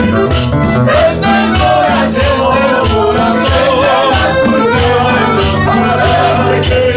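A live Latin band playing: acoustic guitar strummed, conga drum beaten in a steady beat, and men singing.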